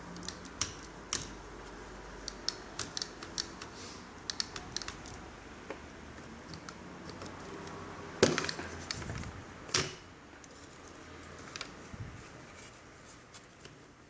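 Small plastic clicks and taps from handling the parts of a Toshiba NB550D netbook by hand, with two louder knocks about 8 and 10 seconds in.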